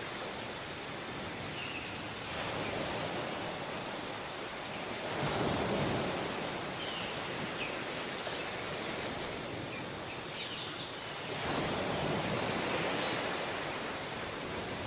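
Waves washing onto a tropical beach, a steady surf hiss that swells twice, about five seconds in and again near eleven seconds.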